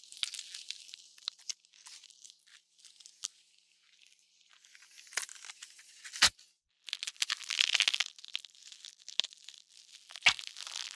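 Designed horror gore sound effect: wet flesh tearing and squelching, crackling with many small crunches. Sharp bone cracks land about six seconds in and again near the end, with a quieter stretch early on.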